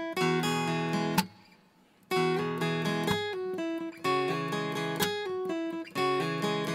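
Background music with strummed acoustic guitar, which drops out for about a second near the start and then carries on.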